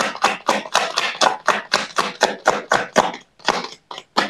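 A deck of oracle cards shuffled by hand, overhand, the cards slapping and rustling about four strokes a second, slowing and stopping near the end.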